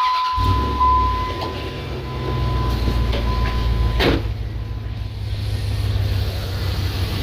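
Dodge Ram 1500's 5.9-litre Magnum V8, fitted with an Airaid cold air intake, firing up about a third of a second in, running a little higher at first, then settling into a steady idle. A high steady warning tone sounds over the first few seconds, and there is a single knock about four seconds in.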